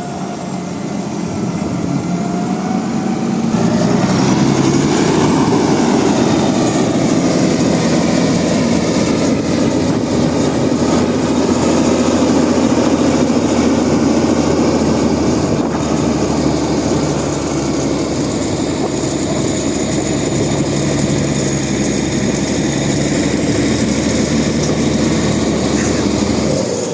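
Engine running steadily under load, growing louder about four seconds in and then holding level.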